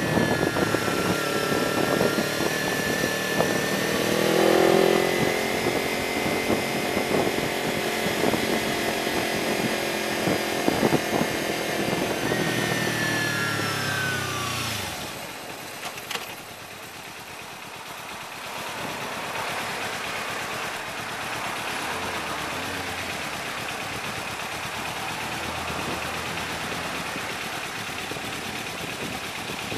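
Kawasaki Ninja 300 parallel-twin engine heard from a tank-mounted camera, running under way, then falling in pitch as the bike slows about halfway through, and idling quietly at a standstill after that.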